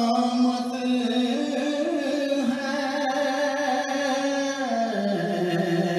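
A man singing a naat, an Urdu devotional song in praise of the Prophet, in solo voice. He holds long notes that rise a step about two seconds in and drop lower near the end.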